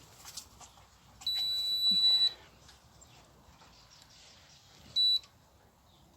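Electronic beeper sounding a steady high-pitched tone: one long beep of about a second, then a short beep about four seconds later. A few light clicks come just before the first beep.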